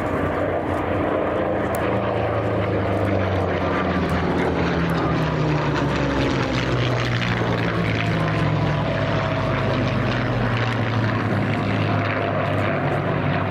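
Several Merlin-engined World War II propeller fighters flying past in a display, their V12 piston engines running steadily, with an engine note that falls slowly in pitch as an aircraft passes.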